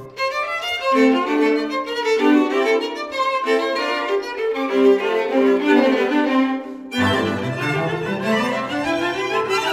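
Instrumental background music led by a violin playing a stepping melody; a lower, sustained part joins about seven seconds in.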